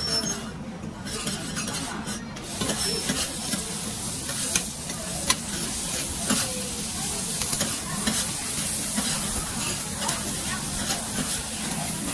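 Food sizzling in a hot wok as it is stir-fried, with a metal spatula scraping and clinking against the wok now and then. The sizzle grows louder about two and a half seconds in.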